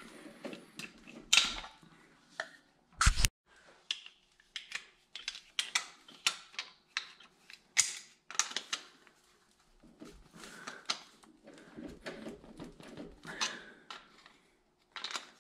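Irregular metal clicks, knocks and scrapes of hand tools working a 1-inch socket out of a freshly hammered-in freeze plug on an engine block, where the socket has been pressed into the plug's hole and stuck. One sharper knock comes about three seconds in.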